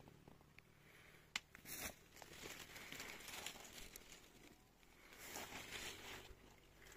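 Faint rustling and crinkling in a few separate bursts, with one sharp click about a second and a half in.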